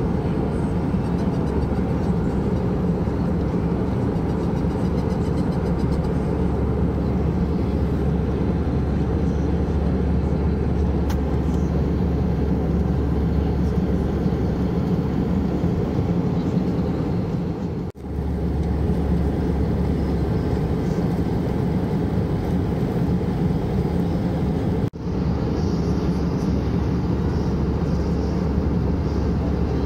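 Steady cabin noise of an Airbus A321-200 in cruise: engines and airflow heard from a window seat, dominated by a low rumble. The sound drops out briefly twice, about 18 and 25 seconds in.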